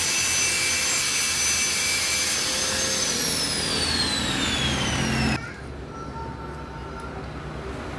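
Electric angle grinder grinding metal on a motorcycle magneto flywheel, then switched off about three seconds in: its whine falls steadily in pitch as the disc spins down and cuts out a little past halfway, leaving only faint background noise.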